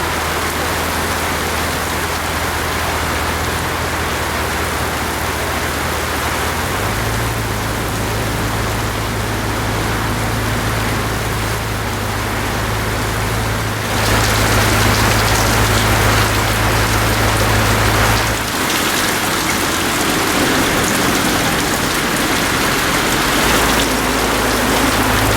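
Inside a vehicle driving through a severe wind storm: a loud, steady rushing hiss of storm wind and whatever it drives against the body, over a low drone of engine and road. The drone shifts in pitch about a quarter of the way in and again past the middle, and the hiss gets louder a little after halfway.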